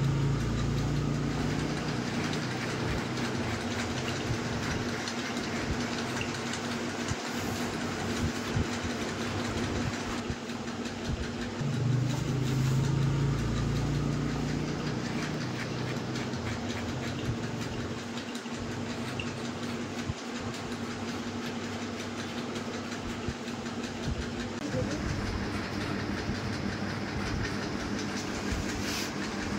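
Electric hair clipper running with a steady buzz while cutting short hair at the back of the neck. The buzz is louder near the start and again around the middle, as the clipper comes closer.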